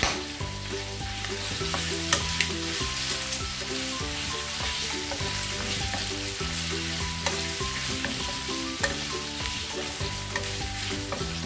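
Pork belly cubes sizzling as they fry in a nonstick pan, stirred with a wooden spatula that clicks and knocks against the pan now and then. Soft background music runs underneath.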